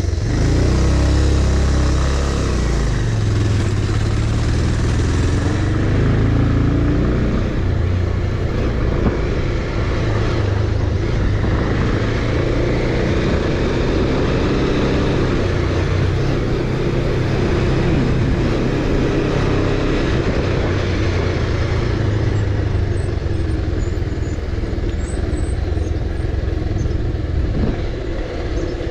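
Bajaj Pulsar 220F single-cylinder motorcycle engine running on the move, with a steady rushing noise underneath. The engine pitch rises and falls in the first few seconds as the throttle changes, then holds fairly steady.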